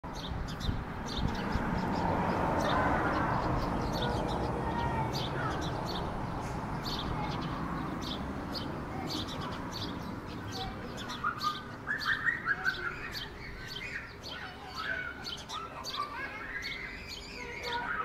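Sparrows chirping, with a cluster of louder chirps from about eleven seconds in, over a rapid, steady series of short high-pitched ticks and a low rumble that fades over the first half.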